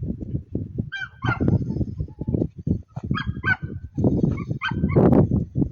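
Short nasal honking calls, in pairs about a second in and again around three and four and a half seconds in, over a rapid run of rustling, puffing sounds.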